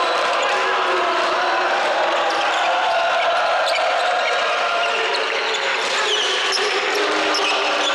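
Basketball game play in a large gymnasium: a ball dribbled on the hardwood court and sneakers squeaking, over a steady murmur of voices from players, benches and spectators.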